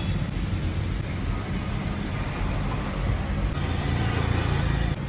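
Steady low background rumble with a hiss over it, dipping slightly just before the end.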